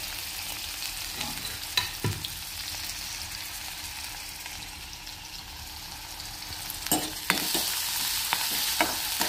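Onion, ginger-garlic paste and a dried red chilli sizzling in hot oil in a steel kadai, being fried until they turn brown. A metal spatula clicks and scrapes against the pan a couple of times about two seconds in, and several more times near the end.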